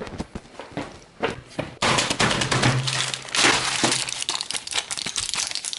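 Medicine packaging being handled close up: a cardboard box and blister pack crinkling and crackling as a tablet is got out, a quick run of small clicks and rustles that grows busier about two seconds in.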